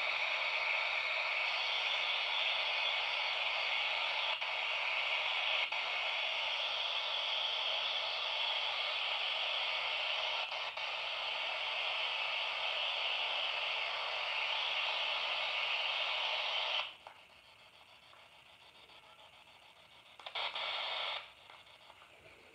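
Radio static hiss from a P-SB7 spirit box sweeping through radio stations. It runs steadily, cuts off suddenly about 17 seconds in, and comes back in one short burst of about a second near the end.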